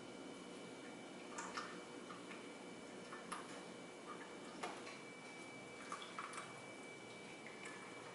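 Tea being poured from an enamel teapot into china cups: a faint, steady trickle with a few light clicks scattered through it.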